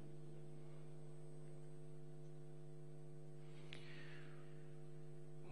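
Steady faint electrical hum with a ladder of even overtones, typical of mains hum in a sound system. One faint click about three and a half seconds in.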